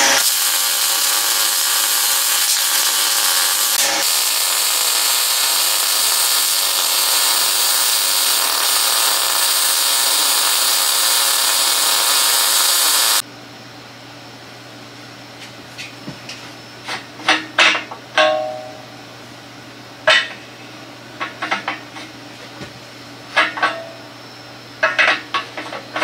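Welding on a steel go-kart roll bar: a steady hiss that cuts off abruptly about 13 seconds in. After that, a low hum with scattered clicks and knocks as the metal fuel tank and its cap are handled.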